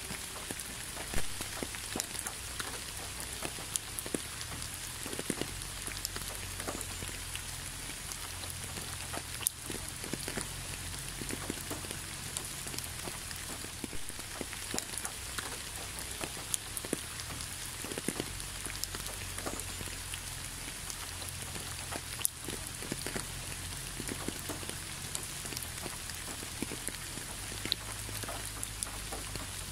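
Steady rain falling, an even hiss with many individual drops striking a surface, a few louder drips standing out among them. A faint low rumble runs underneath.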